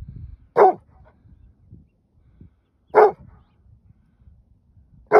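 Rhodesian Ridgeback barking: single loud barks spaced about two and a half seconds apart, three in all, the last right at the end. These are alarm barks answering a coyote pack out in the brush.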